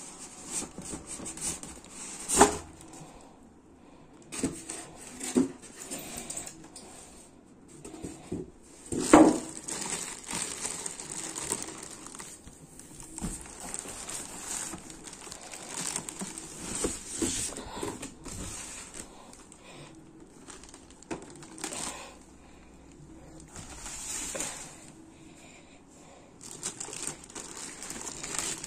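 Plastic packaging bag crinkling and rustling, along with cardboard and styrofoam packing being shifted, as an air purifier is unpacked. Irregular handling noises come and go, with two louder sharp sounds, one about two seconds in and one about nine seconds in.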